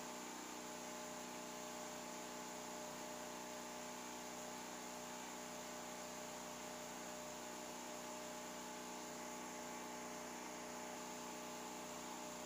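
Steady electrical hum made of several constant tones over a faint even hiss, with no distinct knocks or other events.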